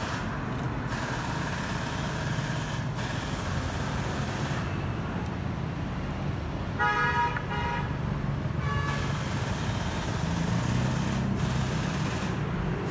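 Steady street traffic noise, with a vehicle horn sounding a little over halfway through and again briefly about two seconds later.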